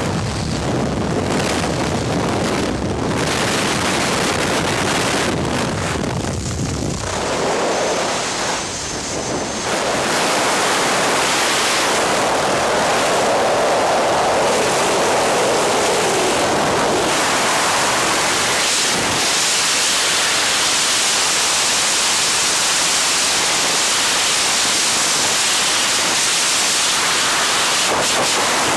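Aircraft engine and wind noise at an open jump door, giving way about eight to ten seconds in to the steady rush of freefall wind over a helmet-mounted camera's microphone.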